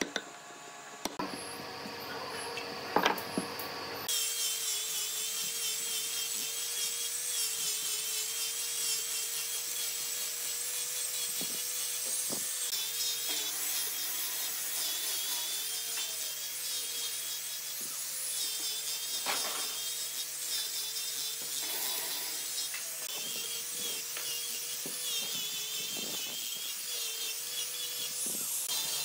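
A few sharp knocks, then an electric power tool running steadily on wood from about four seconds in, its motor tone holding a nearly steady pitch with small wavers.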